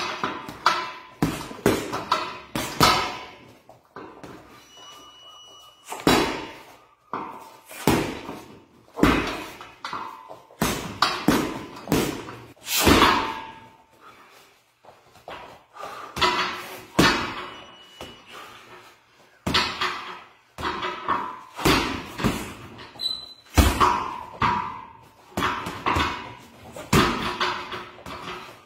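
MMA striking practice: punches and kicks landing with sharp smacks, in irregular runs of several quick hits with short pauses between them.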